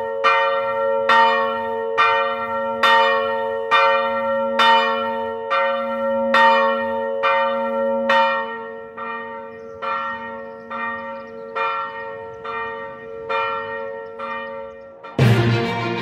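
Swinging church bell on a motorised automatic swing drive, its clapper striking about once a second in an even peal, each stroke ringing on into the next. The strokes grow fainter over the second half, and music cuts in abruptly near the end.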